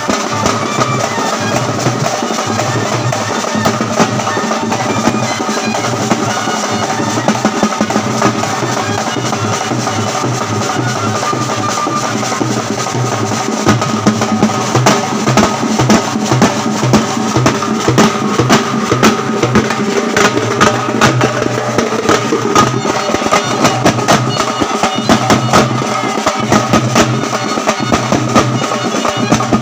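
A street drum band: several double-headed drums and a large bass drum beaten with sticks in a fast, continuous rhythm, with heavier accented strokes from about halfway through.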